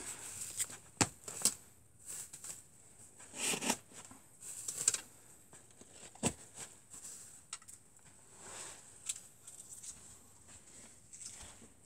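Wooden arrows being worked loose and pulled out of a polystyrene foam target block: scraping and rustling, with a few sharp clicks and knocks.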